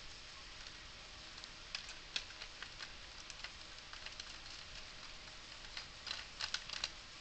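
Scattered light clicks and taps over a steady faint hiss, with a quick cluster of them near the end.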